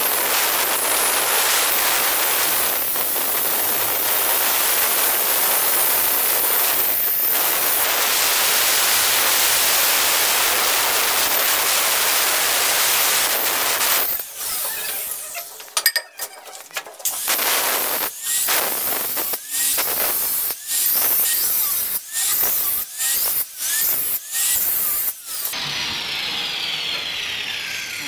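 Handheld electric stone cutter with a diamond blade cutting through a stone slab: a loud, steady grind for about fourteen seconds. After that the cutter is run in a string of short bursts with brief stops between them.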